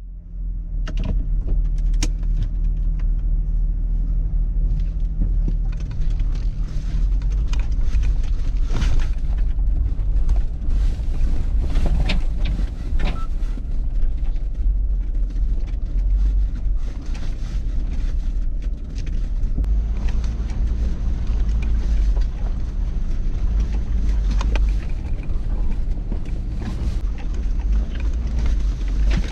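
Jeep Wrangler driving: a steady low rumble of engine and road noise, with scattered small knocks and rattles.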